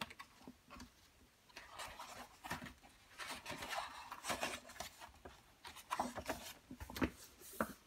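Pages of a paperback picture book being turned by hand: paper rustling and sliding in short, irregular sweeps, starting about a second and a half in.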